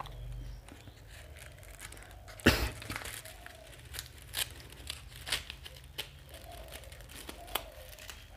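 A paper envelope being cut open with a knife and handled: scattered crinkling and tearing of paper, with the loudest crackle about two and a half seconds in.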